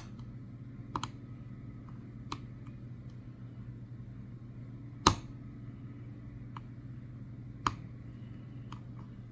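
Hook pick and tension wrench working the pins inside a Master Lock 6835 padlock: a few scattered small metallic clicks, the loudest about five seconds in, over a faint steady low hum.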